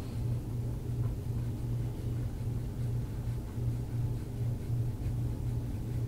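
A steady low hum with a wavering, pulsing loudness.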